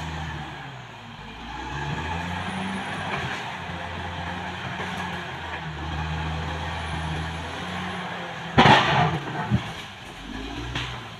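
Caterpillar D6R XL bulldozer's diesel engine running under load, its low note rising and falling as it pushes through forest brush. About two-thirds of the way through, a sudden loud crash, the loudest sound, is followed by a few smaller knocks.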